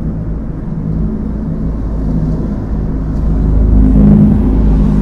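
Antonov An-22 turboprop airliner flying overhead: a low droning rumble from its four NK-12 engines and contra-rotating propellers, with steady propeller tones, swelling louder about four seconds in.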